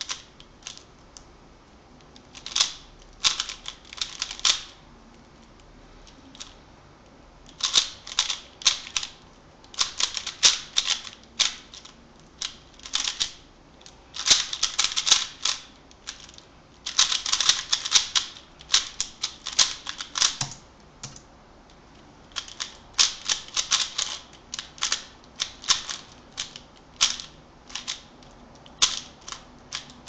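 Plastic 3x3 speed cube being turned fast by hand: rapid clattering clicks of the layers snapping round, in bursts of a second or two with short pauses between them.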